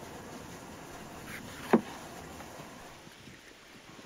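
A large kitchen knife cutting through a bell pepper and striking a wooden cutting board, one sharp knock a little under two seconds in.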